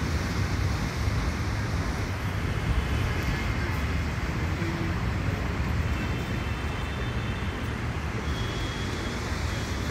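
Steady city traffic noise: a low, even rumble with no single event standing out.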